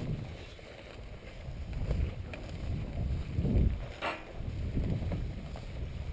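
Wind and movement noise on a body-worn camera's microphone, a low uneven rumble that swells several times, with one sharp click about four seconds in.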